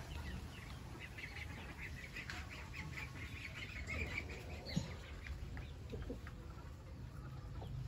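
Backyard poultry, chickens and Muscovy ducks, calling from their pens. A quick run of short, high chirps and peeps comes in the first few seconds, then scattered calls.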